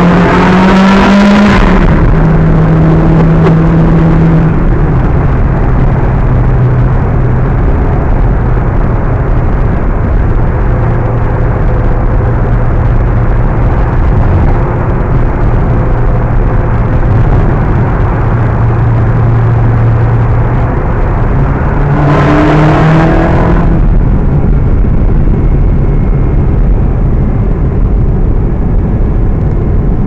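Ferrari 360 Spyder's V8 heard from inside the cabin in a tunnel, its pitch climbing hard as it accelerates at the start, then running steadily at cruise. About two-thirds of the way through it climbs hard once more before settling again.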